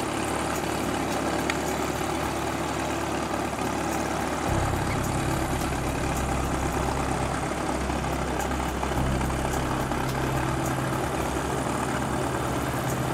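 Diamond DA40 light aircraft's piston engine and propeller running at low power on the ground, a steady engine note that shifts slightly about four seconds in and again about nine seconds in.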